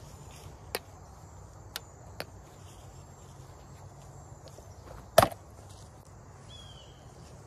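A single loud, sharp crack of a golf ball meeting a black wiffle-ball bat about five seconds in, with a few faint taps before it.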